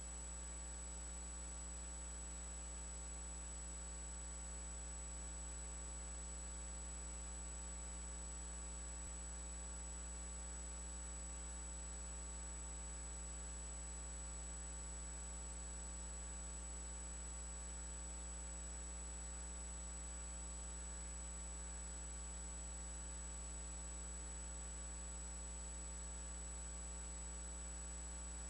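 Steady electrical mains hum with a thin high-pitched whine above it, unchanging, with no speech.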